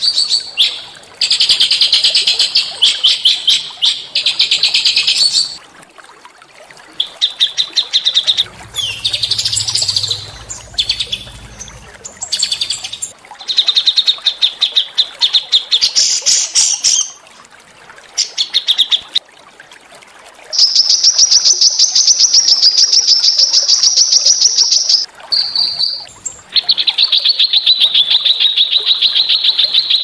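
A small songbird singing in long, fast, harsh trills: strings of rapidly repeated high notes lasting several seconds each, broken by short pauses.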